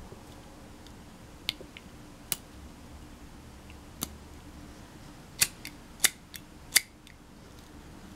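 Sharp mechanical clicks from a brass butane jet torch lighter insert being worked by hand: a few spaced clicks, then a quick run of five in the second half.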